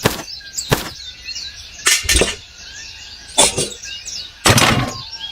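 A series of sharp knocks or clatters, about five spaced irregularly, some with a brief rattling tail. Small birds chirp steadily underneath.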